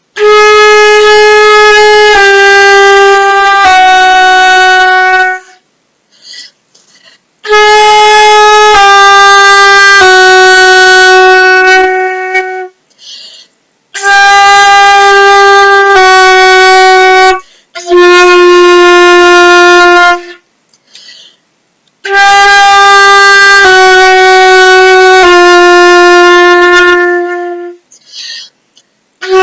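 Flute playing long tones in its low register: four phrases of three held notes, each phrase stepping down in pitch note by note, with short breaths taken in the pauses between phrases.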